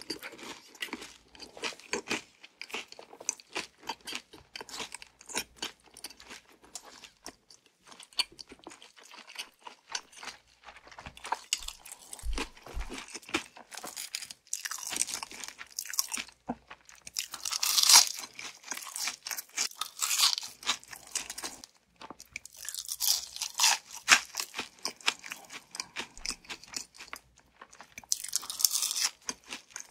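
Close-miked crunching and chewing of crispy Kyochon Salsal fried chicken: a steady run of crackly bites and chews, with louder bursts of crunching several times, the loudest about two-thirds of the way through.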